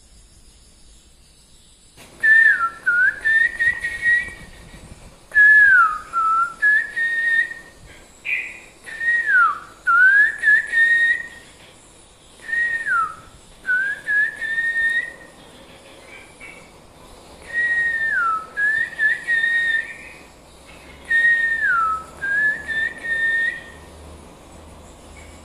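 Recorded call of a sooty-headed bulbul (kutilang) played back as a lure for an oriental magpie-robin: the same whistled phrase, a dip in pitch followed by a level note, repeated in short bursts every few seconds, starting about two seconds in.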